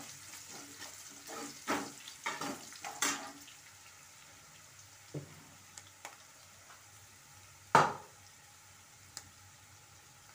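Sliced onions, garlic and dried red chillies sizzling in oil in a nonstick kadai, stirred with a spatula in several quick scraping strokes over the first three seconds. After that the pan sizzles more quietly, with one loud sharp knock about eight seconds in.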